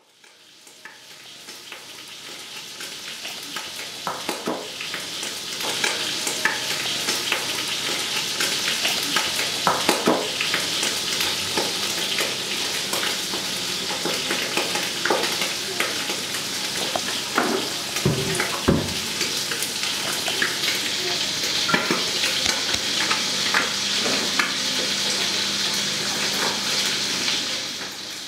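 Food frying and sizzling in a wide pan, fading in over the first few seconds, with occasional knocks and scrapes of a utensil stirring against the pan.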